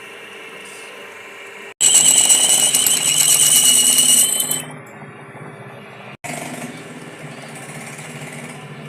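A high-pitched power tool running loudly for about three seconds, with a fast pulsing whine, between stretches of a quieter steady machine noise; the sound changes abruptly at hard edits.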